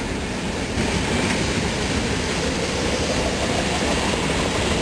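Freight train of boxcars passing along the riverbank: the steady rolling noise of its wagons on the rails.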